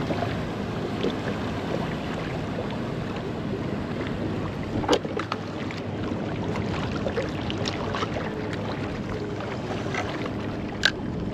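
Choppy water lapping against a kayak hull, with wind on the microphone. A sharp click about five seconds in and another near the end.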